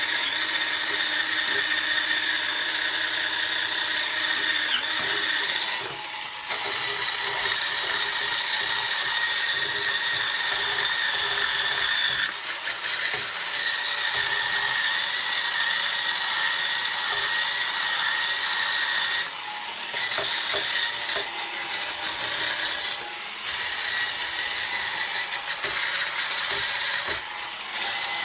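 Hurricane Spin Scrubber's electric motor running with a steady whine as its spinning brush head scrubs a ceramic sink and tap. The sound dips briefly a few times.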